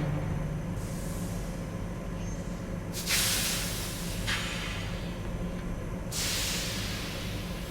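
Basement ambience sound effect: a low steady machinery hum under three long bursts of hissing, the loudest beginning about three seconds in.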